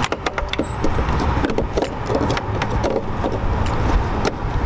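Plastic tail-light bulb socket being pushed into the lamp housing and twisted to lock, making scattered clicks and knocks over a steady low rumble of hand-held camera handling.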